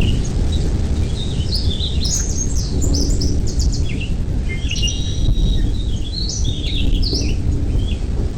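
Birds chirping: many short high chirps and quick up-and-down notes, thickest through the middle, over a steady low rumble.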